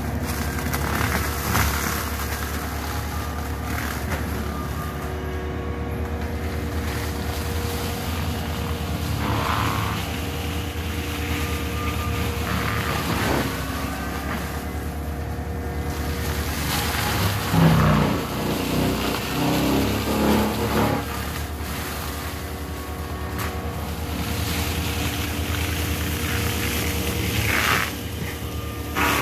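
Cat compact track loader running a mulcher head while clearing brush and stumps: a steady diesel engine drone. The engine note dips and rises several times under load, most strongly about two-thirds of the way through.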